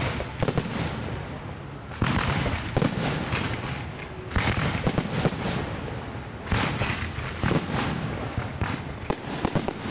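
Fireworks display going off: a rapid series of bangs and crackles, with fresh volleys of loud bursts about two, four and a half, six and a half and nine seconds in, over continuous crackling.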